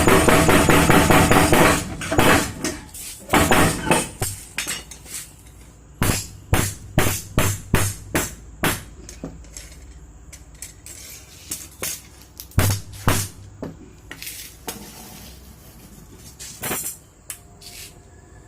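Mechanical forging hammer pounding rapidly, stopping about two seconds in. Irregular ringing clanks of metal striking metal follow, one to three a second, thinning out toward the end.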